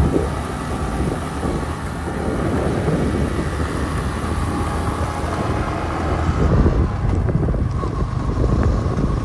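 Motorcycle riding along a road, its engine and road noise heard from the pillion seat, with wind buffeting the microphone.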